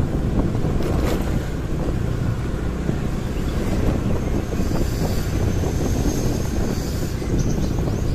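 Steady low rumble of wind on the microphone while riding a motorcycle along a city street, with the traffic and engine noise of the ride mixed in.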